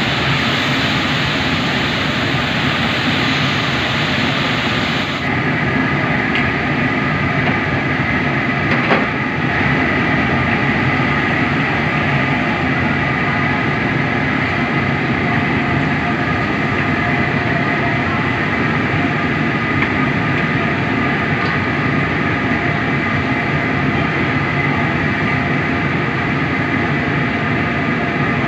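Steady roar of a commercial wok range's gas burner, with oil frying and bubbling in the large wok. A single sharp knock about nine seconds in.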